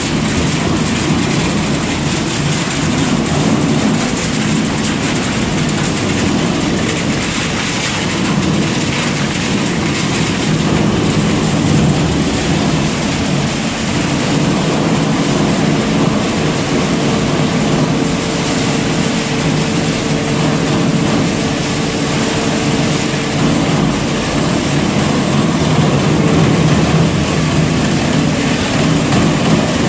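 Bano Premac 22-70 Hydro hydraulic single-shaft shredder running as it shreds copper transformer coils: a steady, loud machine drone with dense, continuous clatter.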